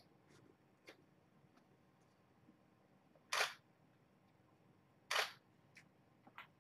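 Camera shutter firing twice, about two seconds apart, with a few faint ticks in between.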